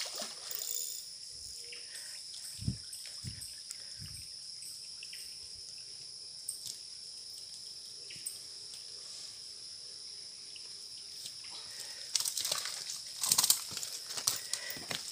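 Steady, high-pitched outdoor insect drone. A few low knocks come about three seconds in, and a cluster of louder noisy bursts near the end.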